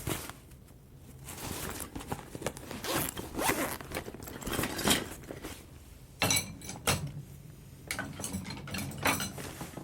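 A zipper pulled open in several long strokes, with scraping and small clicks between them: a piano tuner getting his tools out before he starts to tune.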